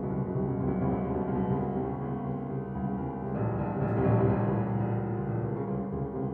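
Grand piano played in a dense, continuous passage weighted toward the low notes, with rapid repeated notes that grow fuller and louder about three seconds in.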